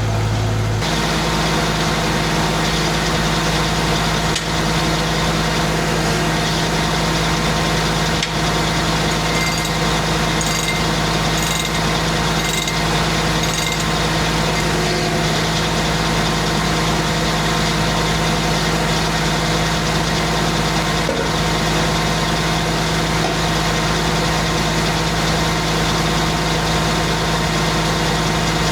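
Engine powering a homemade circular sawmill, running steadily after picking up speed once about a second in.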